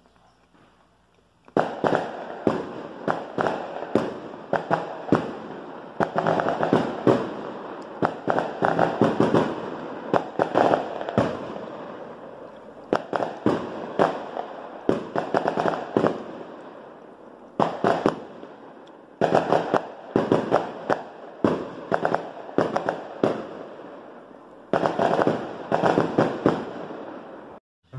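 Fireworks going off in rapid volleys of sharp bangs, starting about a second and a half in, with short lulls between volleys, and cutting off just before the end.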